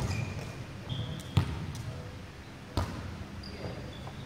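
A volleyball being struck during a rally: three sharp hits about a second and a half apart, the middle one the loudest, echoing in a large sports hall.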